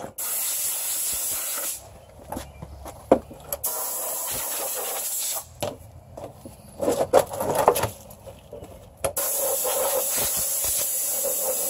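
Compressed-air blow gun on an air hose blowing debris out of a push mower, in three steady hissing blasts that start and stop sharply, the last one running past the end. A few knocks and rattles come between the second and third blasts.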